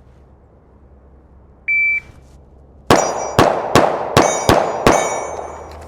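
Shot timer's start beep, then six quick shots from a Glock 43X 9mm pistol about a second later, spaced under half a second apart. Steel target plates ring after the hits.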